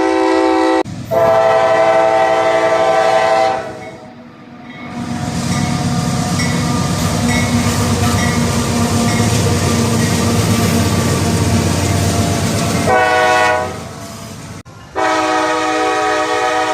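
Locomotive's K5LA five-chime air horn blowing loud, steady chords: a blast ending about a second in, then a long blast, then several seconds of the train rumbling past without the horn, then a short blast followed by a long one near the end.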